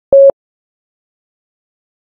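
One short steady Morse code beep, a single dit, near the start.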